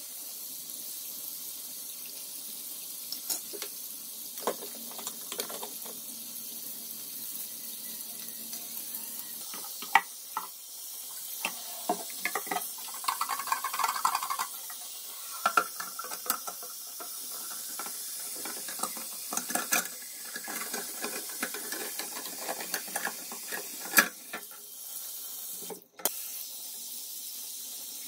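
Tap water running into a bathroom sink while rusty kerosene-lamp parts are scrubbed with a toothbrush and rinsed, with scattered knocks and clinks as the parts are handled against the basin.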